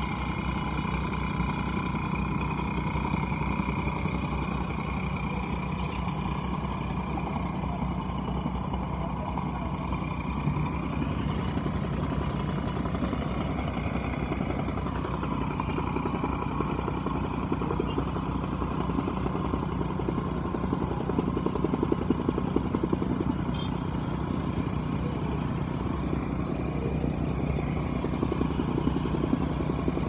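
A bulldozer's diesel engine running steadily, with motorcycles passing by.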